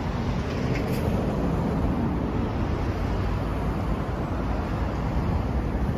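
Kawasaki KLX230S's air-cooled single-cylinder four-stroke engine idling steadily.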